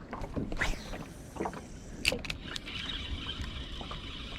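Knocks and clicks of gear being handled in a small fishing boat, then a steady high-pitched buzz from about two and a half seconds in.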